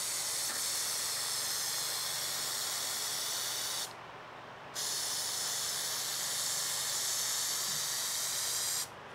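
Aerosol can of spray adhesive hissing in two long sprays, broken by a pause of about a second just before the middle.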